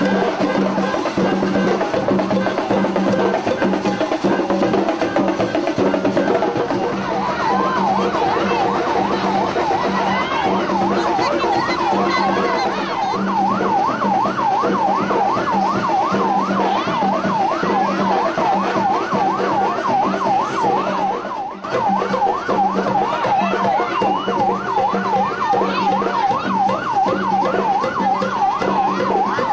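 Emergency-vehicle siren in a fast yelp, a quick rising and falling whine about three times a second, coming in about seven seconds in over steadier held tones.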